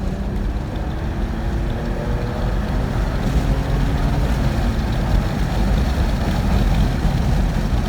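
Car being driven hard: the engine note rises in pitch near the start, then a loud steady rumble of engine, road and wind noise builds slightly.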